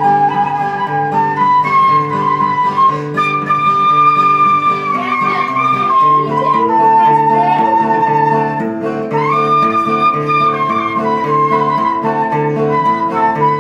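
Quena, the Andean notched end-blown flute, playing a melody of long held notes that step up and down, over an acoustic guitar strumming chords in a steady rhythm.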